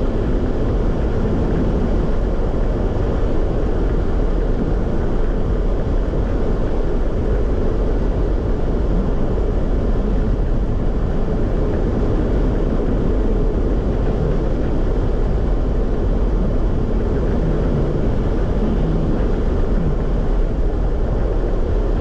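Steady road and engine noise inside a moving car, an even low rumble with no breaks.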